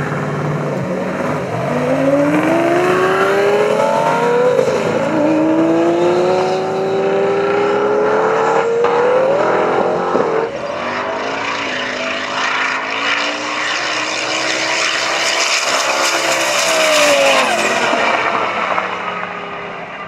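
Twin-turbo Lamborghini and a turbocharged Pontiac Trans Am accelerating hard side by side in a roll race, their engines rising in pitch through the gears with a drop at each shift. Steady hiss over the engines, and the sound eases off near the end as the cars pull away.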